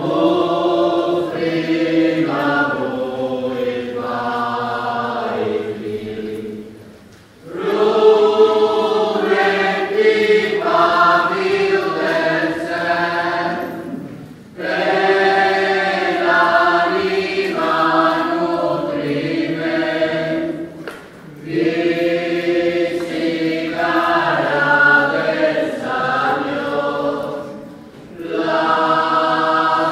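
Choir singing a hymn during the preparation of the gifts at Mass. The singing comes in phrases of about seven seconds, with short breaks for breath between them.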